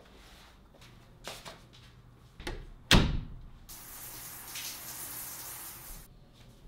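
A door shutting: a couple of light clicks, then one loud thud about three seconds in, followed by a steady hiss lasting about two seconds.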